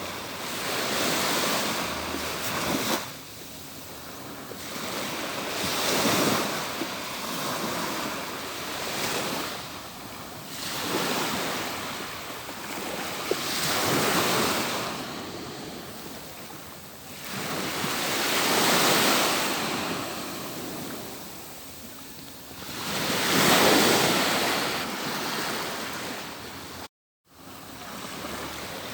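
Atlantic Ocean waves breaking and washing up a beach, one swelling surge every four to five seconds. A brief gap of silence cuts in near the end.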